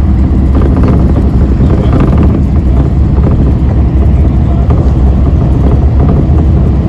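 Steady low rumble of a moving road vehicle: engine and road noise.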